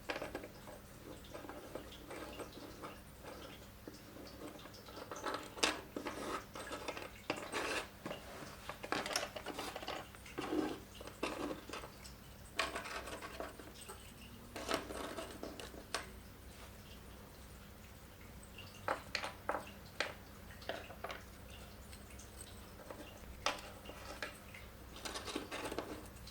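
Small metal parts and hand tools being handled on a workbench: irregular light metallic clinks and taps, over a faint steady low hum.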